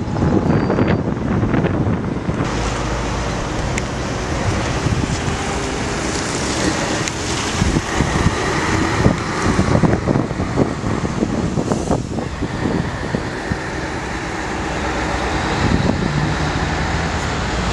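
Road traffic: cars and a van driving past, with wind rumbling on the microphone. The vehicle noise swells about eight seconds in as the van passes.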